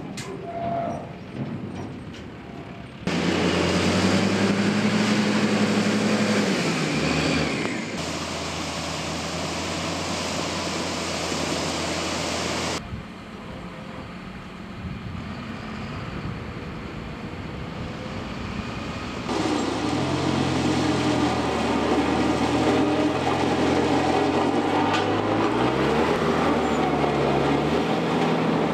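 Diesel engines of heavy earthmoving machines running in a string of separate shots, their pitch stepping up and down as the machines work. It opens more quietly, as a tipping dump truck's load of gravel slides out.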